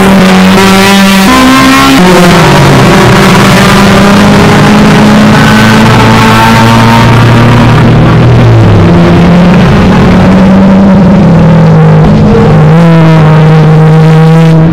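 Racing car engine running loud and hard, its pitch holding steady for a few seconds at a time, then shifting to a new level in steps, and rising briefly near the end.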